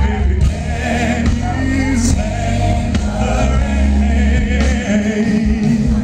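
Live R&B concert: a male singer sings a wavering melody into a microphone over the band, with a heavy bass.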